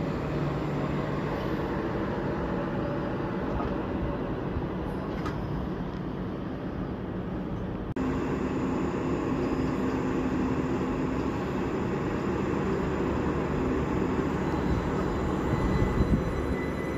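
Passenger train at the station platform, running with a steady mechanical hum. After a break about halfway through, a few steady tones sit in the hum, and a higher whine comes in near the end.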